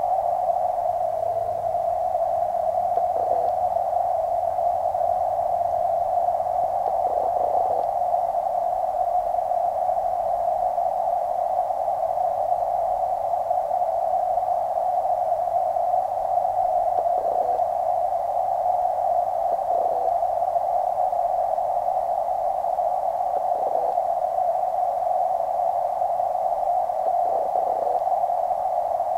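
Steady, muffled underwater hiss picked up by a waterproof camera submerged in a creek. It is a constant narrow midrange rush, with a handful of faint soft sounds underneath it.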